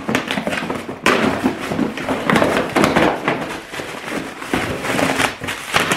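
Cardboard shipping box being torn open by hand: tape and cardboard ripping and crackling in rough bursts, with a sharp rip about a second in.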